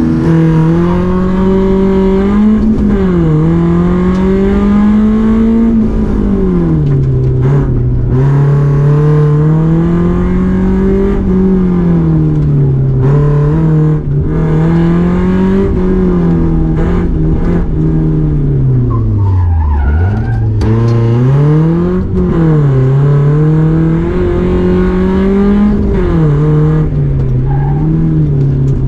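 Rally car engine working hard on a timed run, its revs climbing and falling over and over through gear changes and corners, dropping deeply about twenty seconds in before picking up again.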